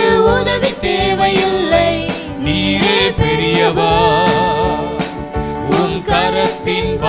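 Christian worship song played by a church band, with a steady drum beat under a melody and a wavering held note in the middle.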